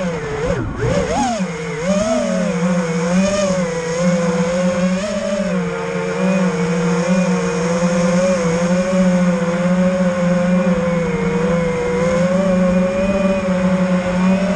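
FPV quadcopter's electric motors and propellers whining as it flies. The pitch swoops down and back up about a second in, then holds fairly steady with small wavers as the throttle shifts.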